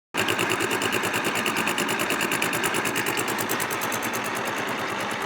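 A small motor-driven machine running with a fast, even pulsing rhythm, starting abruptly.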